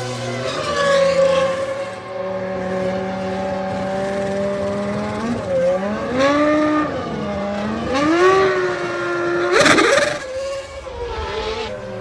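Formula One race car engines running at high revs, their pitch dipping and rising again several times through gear changes. A loud rushing burst comes about ten seconds in.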